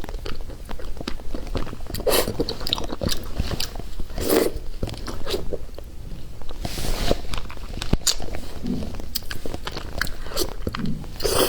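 Close-miked biting and chewing of a very fatty piece of meat, with scattered short mouth clicks and a few brief louder smacks.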